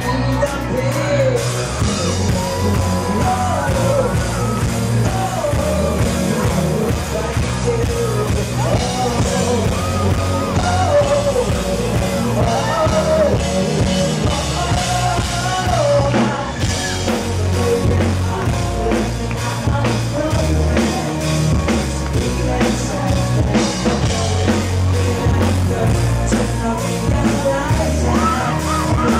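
Rock band playing live, a male lead singer over the full band with a heavy low end.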